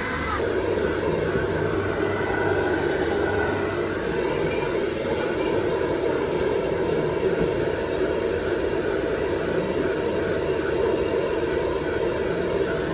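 Handheld hair dryer running steadily on the head, with a continuous loud rushing of blown air.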